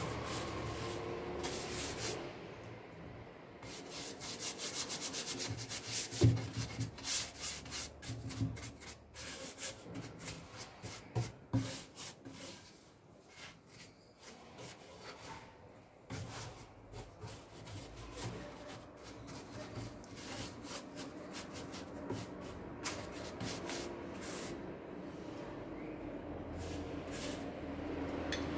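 A paintbrush scrubbing liquid permethrin woodworm treatment onto a wooden chair in many short, quick strokes, dipped now and then into a glass jar; the strokes thin out for a few seconds in the middle.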